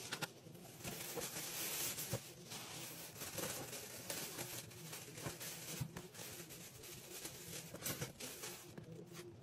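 Thin plastic bag crinkling and rustling as it is torn open and pulled off a whole raw chicken, with scattered sharp clicks.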